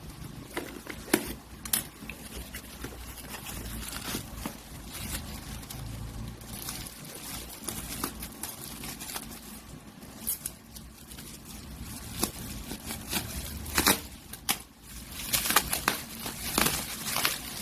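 Plastic packaging and small plastic parts being handled: crinkling and rustling with irregular sharp clicks and taps, busiest near the end, over a low steady hum.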